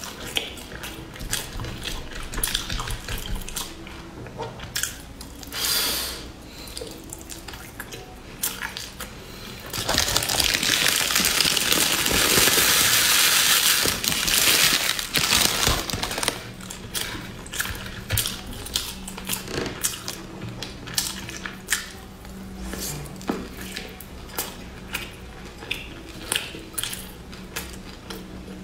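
Close-miked chewing and wet mouth sounds of sticky rice, with many small clicks. About ten seconds in, a plastic bag crinkles loudly for some six seconds as crushed nuts are shaken out of it onto the food.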